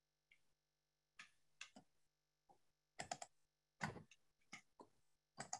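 Faint, irregular clicks of a computer keyboard, about a dozen scattered through a few seconds of near silence.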